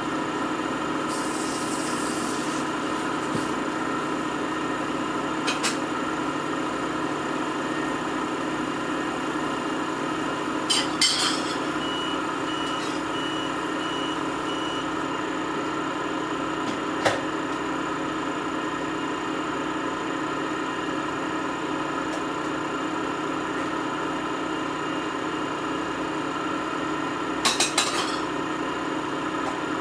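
Samsung washing machine running its wash cycle: a steady motor hum, with a few brief sharp clicks and knocks now and then and a short cluster of them near the end.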